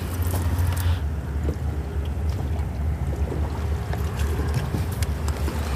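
Steady low wind rumble on the microphone out on open water, with a few faint clicks from gear being handled on the kayak.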